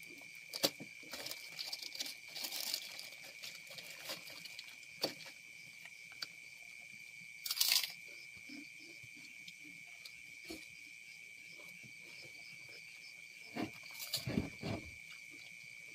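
Communal hand-eating: scattered crunches of kerupuk crackers and rustling of their plastic bag, with a louder rustle a little before halfway and a cluster of thumps and rustles near the end. Under it a steady high-pitched drone of night insects.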